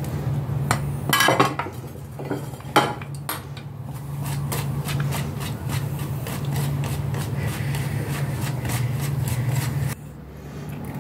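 A few sharp knocks as bowls are handled, then a hand wire whisk beating flour into a runny cake batter in a plastic bowl, with quick regular strokes clicking against the bowl several times a second.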